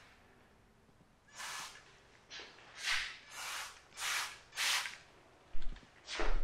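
Spray bottle of ceramic coating being sprayed: six short hissing spritzes in quick succession, then a couple of light knocks near the end.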